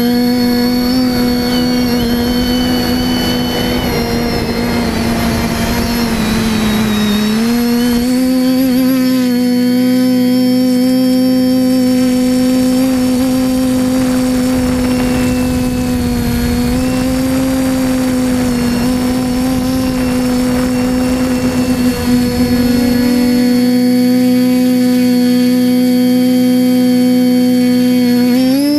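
TBS Discovery Pro quadcopter's TBS 1000KV brushless motors and propellers whining steadily in fast, low flight, heard through the onboard camera. The pitch dips briefly about seven seconds in and wavers again near the end as the throttle changes.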